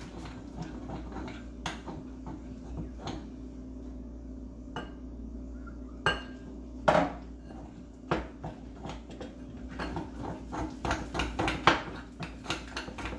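A utensil clinking and scraping against a glass mixing bowl as flour, egg and water are stirred into a batter. There are two louder knocks about halfway through, and in the last few seconds the clinking becomes quick and rapid as the batter is beaten.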